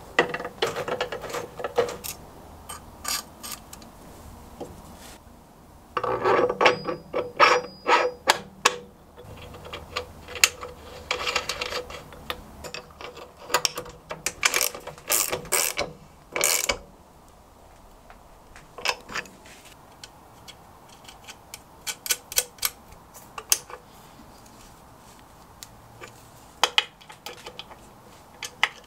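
Socket ratchet wrench clicking in short bursts of rapid clicks, with pauses between, as it turns a nut on the end of a lathe leadscrew.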